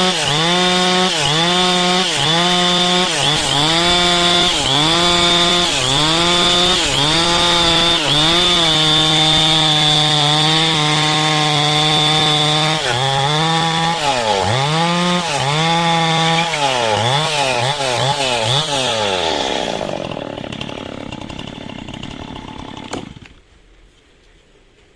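Stihl chainsaw cutting through coconut-palm wood at full throttle, its engine note dipping under load and recovering about once a second. Near the end the engine slows and dies away, followed by a single sharp knock.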